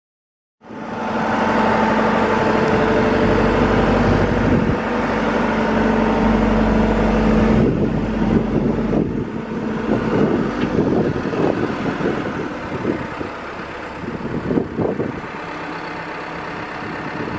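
Telehandler engine running steadily with a held hum as the boom carries the man basket. About eight seconds in, the hum drops away and the sound turns rougher and more uneven.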